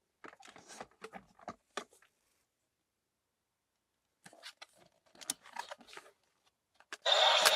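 Small plastic clicks and rustles of a toy Ride Booker and its cards being handled, in two short spells, then a louder scratchy burst lasting about a second near the end.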